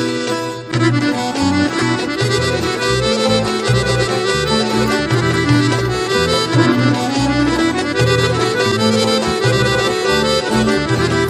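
Background music: a lively instrumental folk tune led by accordion over a moving bass line.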